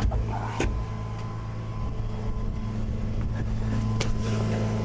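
Tow truck engine running steadily in the background, with a few sharp metal clicks as the winch line is unhooked from the pickup, one about half a second in and another about four seconds in.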